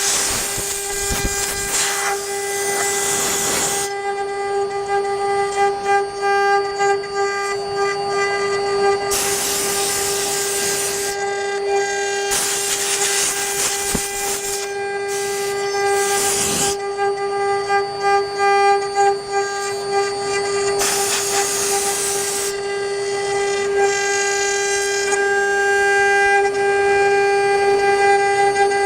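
A CNC wood lathe's router spindle running with a steady high whine, with several hissing stretches of a second or more as the bit cuts into the turning wood.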